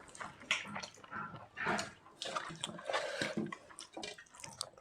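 Eating sounds: dal and egg curry being mixed and eaten, a run of short, irregular noises.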